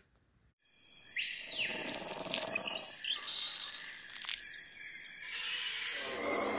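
Nature ambience fading in after a moment of silence: a steady high hiss with bird calls and chirps over it, one rising call about a second in, and the sound growing fuller near the end.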